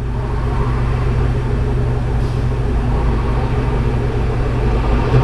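Steady low hum of a vehicle, with no clicks or other distinct events.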